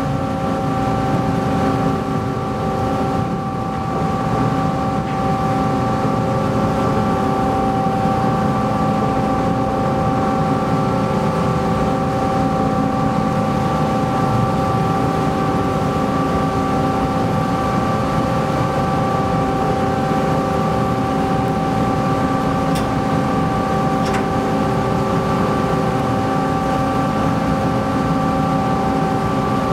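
Steady drone of a car ferry's engines and machinery: a low rumble with several steady tones over it. Two faint clicks come about two-thirds of the way through.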